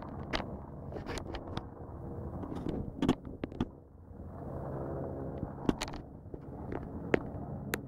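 Helicopter hovering overhead: a steady low drone with a hum of several held tones, fading briefly about four seconds in and coming back. Scattered sharp clicks sound over it.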